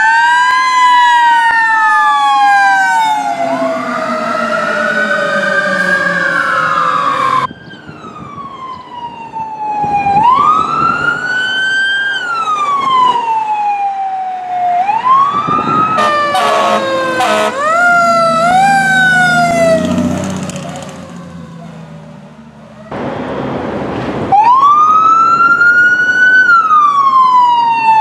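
Emergency-vehicle sirens wailing, rising and falling in pitch, in several clips cut one after another: a fire ladder truck's siren with a second siren overlapping it, then another responding vehicle's wail with a stretch of short horn blasts and engine rumble around the middle, then a loud, steady wail near the end from an emergency SUV.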